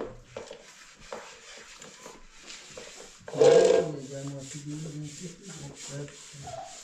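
Washing by hand at a bucket: repeated rubbing and scrubbing strokes, about three a second. About halfway through a person's voice comes in over the scrubbing.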